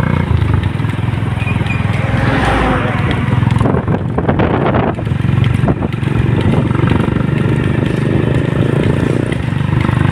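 Motorcycle engine running steadily at low road speed, with road and wind noise and a brief rush of noise about four seconds in.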